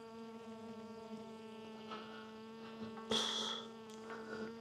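Stingless bees buzzing around an opened hive: a steady, even-pitched drone. A brief rustle of handling comes about three seconds in.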